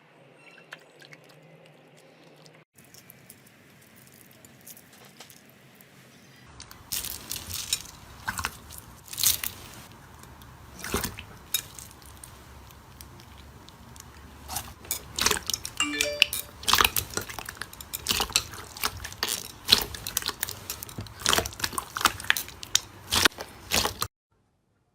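Slime being squeezed and poked by hand, making a run of sharp sticky crackles and pops that starts after a few quiet seconds and cuts off suddenly near the end.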